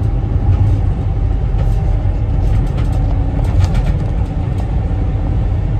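Cargo van's engine running steadily, heard from inside the cab as a constant low hum. A few soft puffs and clicks in the middle come from a tobacco pipe being drawn on.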